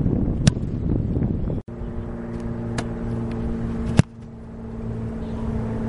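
Wind noise on the microphone with a sharp smack, then after a cut a steady low hum of several held pitches, like an idling engine. Two sharp smacks cut through it, the loudest about four seconds in: a snapped football smacking into the receiver's hands.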